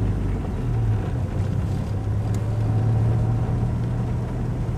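Car running and rolling along, heard from inside the cabin: a steady low engine hum under road noise.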